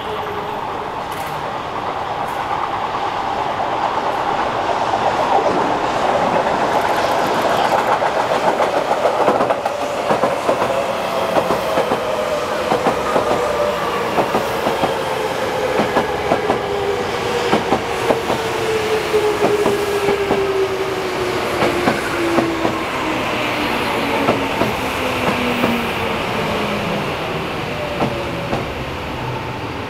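Tokyo Metro 05 series electric train passing on elevated track, wheels clattering over rail joints. Its motor whine falls steadily in pitch as the train slows.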